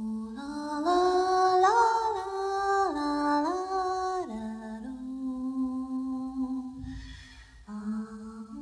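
Soundtrack music: a slow wordless vocal melody that steps up and down between held notes, with a brief rushing noise about seven seconds in.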